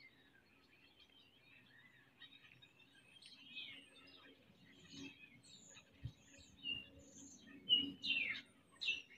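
Faint birdsong: many short chirps and sliding whistles from several small birds, getting busier in the second half, with one low thump about six seconds in.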